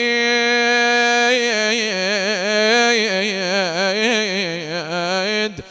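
A man's voice chanting a Shia mourning lament (nai), drawing one syllable out into a long note: held steady at first, then wavering through ornamented turns, before breaking off near the end.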